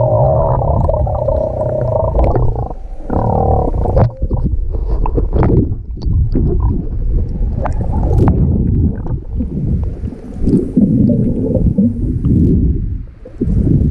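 Muffled underwater water noise heard through a waterproof camera housing: water sloshing and bubbling around the case as a swimmer moves, with scattered small clicks and splashes. A steady hum runs for the first couple of seconds, then gives way to the uneven swishing.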